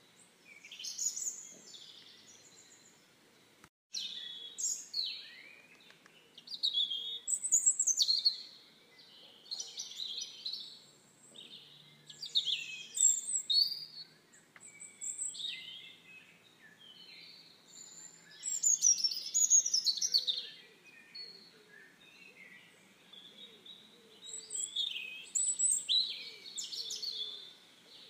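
Songbirds singing: a run of short, varied chirping phrases with brief pauses between them.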